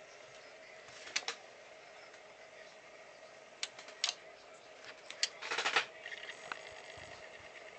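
Sony CDP-M19 CD player running with its cover off and a disc in the transport, a faint steady whine under light hiss. Several sharp clicks sound through it, and a short clattering burst comes about two-thirds of the way in.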